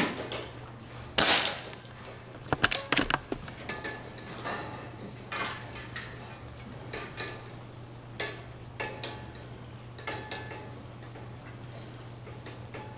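A single sharp shot from a Benjamin Marauder Woods Walker .22 precharged pneumatic air gun right at the start, then a brief rushing noise about a second later and scattered light clicks and knocks through the rest, over a steady low hum.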